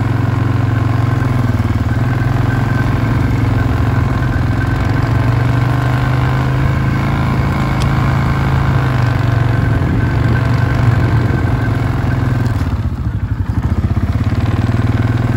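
4x4 ATV engine running steadily as it rides along, easing off briefly near the end.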